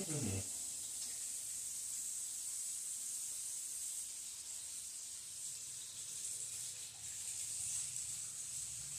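Beef smash burger patties sizzling steadily in a hot pan. A short sound falling in pitch right at the start.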